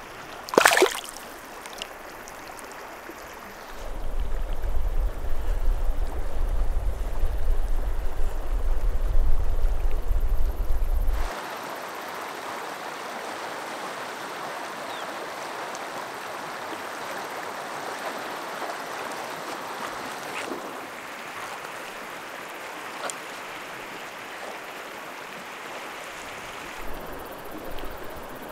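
A brief splash about a second in as a brown trout is let go into the river, then the steady rush of a shallow, rocky mountain river. A louder, deep rumble runs from about four to eleven seconds in.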